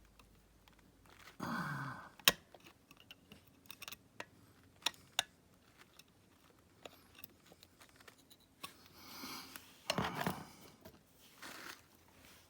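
Small metal clicks and taps of circlip pliers and a circlip being worked onto a shaft, with one sharp click about two seconds in.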